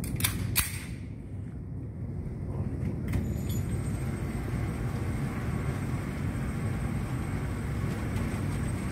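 Two pistol shots in quick succession, about a third of a second apart, with a steady low rumble beneath.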